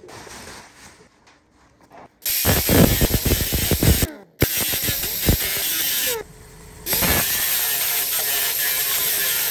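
Pneumatic right-angle grinder with an abrasive disc grinding down a weld on the truck cab's sheet-steel panel, a hissing high whine. It starts about two seconds in, drops out briefly twice, and runs on again.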